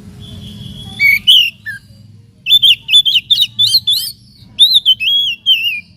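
Oriental magpie-robin (kacer) singing: a short burst of sharp whistled notes about a second in, then a fast run of varied, pitch-jumping whistles from about two and a half seconds until near the end. A faint low hum lies underneath.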